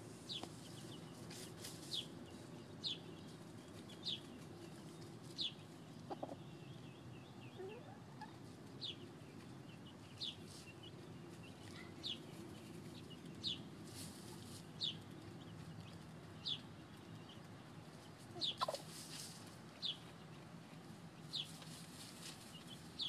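Chickens calling: a string of short, high-pitched peeps repeated about once every second or so.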